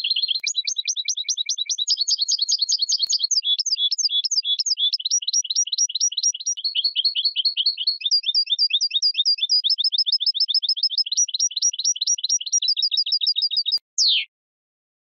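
European goldfinch singing: a long, fast twittering run of about eight high notes a second, changing phrase every few seconds. It ends with a falling note about fourteen seconds in and breaks off.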